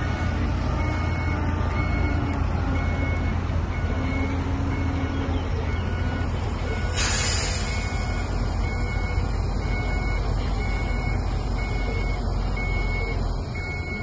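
Diesel engines of a dump truck and a bulldozer running with a deep, steady rumble, while a reversing alarm beeps over and over. A short hiss of air cuts in about halfway through.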